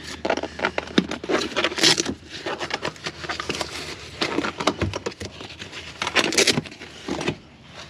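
Driver's seat of a Suzuki Every kei van being unlatched and flipped up by hand: a run of clicks and knocks with fabric rustling, louder about two seconds in and again near the end.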